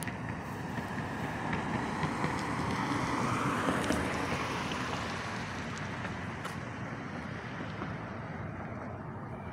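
A car driving past on a residential street, its tyre and road noise swelling to a peak about four seconds in and then fading away.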